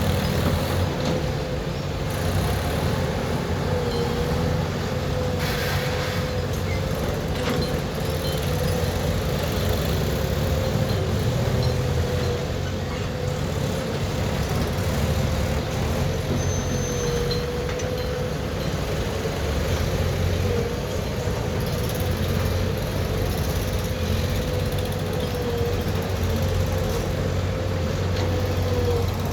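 JCB 3DX backhoe loader's diesel engine running steadily, with a deep hum and a steady whine that dips briefly now and then.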